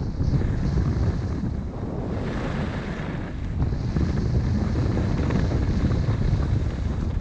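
Wind buffeting a GoPro Hero 6 Black's microphone during a downhill ski run: a steady low rumble. Over it, a hiss of skis on snow that grows louder about two seconds in and again near the middle.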